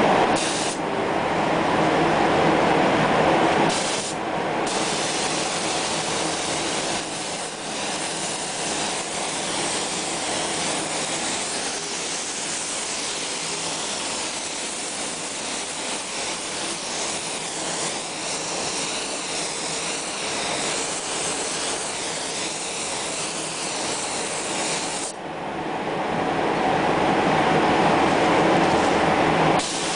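Spray gun hissing as it mists liquid over a black-coated panel in the spray-chrome process. The spray is loudest for the first few seconds and again for the last few seconds, with a quieter steady hiss in between.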